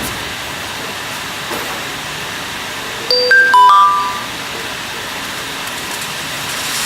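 A short chime of a few stepped notes about three seconds in, lasting around a second, over steady background machinery noise.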